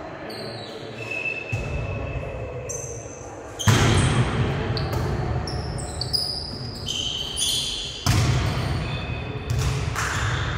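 Volleyball being struck during a rally in a large gym hall: two loud sudden hits about four seconds apart, each ringing on in the hall's echo, with short high squeaks of sports shoes on the court floor in between.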